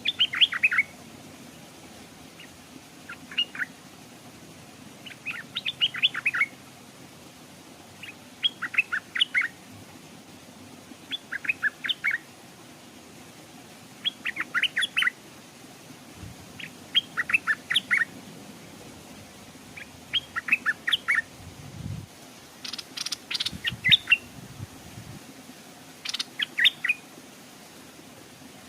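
Stripe-throated bulbul singing: short phrases of several quick, bright notes, repeated about every two seconds. A few low bumps come in the second half.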